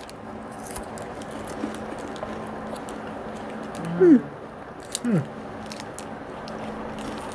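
People chewing crisp wafer Lemon Crisp KitKat bars, with faint crunching clicks over a steady low hum. Two short, falling "mm" sounds come about four and five seconds in.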